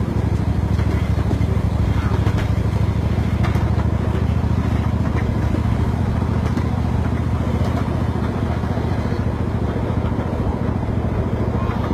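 Miniature ride train running, heard from on board: a steady, low engine drone with a fast flutter.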